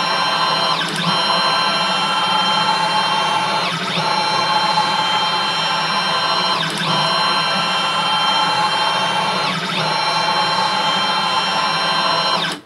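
Stepper motors of a DIY 3D printer driving its Y table back and forth at speed: a loud, steady whine made of several tones. The whine briefly dips in pitch and comes back about every three seconds as the axis slows and reverses.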